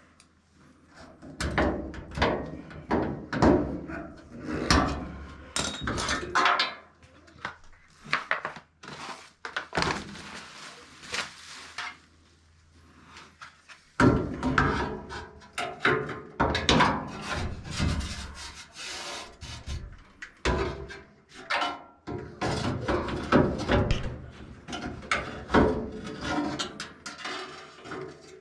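Irregular knocks and clunks, with a short quiet gap about twelve seconds in.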